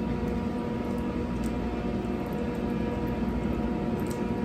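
Steady hum and hiss of a running kitchen appliance, with a faint steady tone in it. A few faint soft ticks come from a silicone basting brush dabbing melted butter onto raw Cornish hens in a cast iron skillet.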